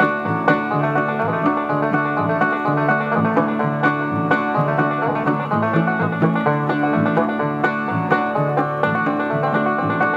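Music with plucked strings, played back through a pair of small Pyle shelf speakers driven by an ICStation Bluetooth receiver and amplifier board.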